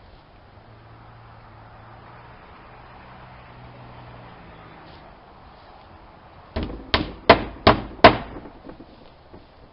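A quick run of five hammer blows, about two and a half a second, followed by a few lighter taps.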